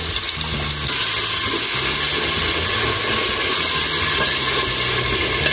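Steady hissing sizzle of onion and tomato frying in an aluminium pressure cooker as tomato sauce is poured in and stirred with a wooden spatula.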